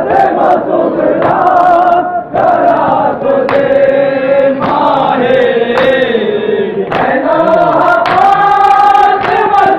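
Men's voices chanting a nauha, a Shia lament, together in long sung lines, with chest-beating (matam) thudding about once a second.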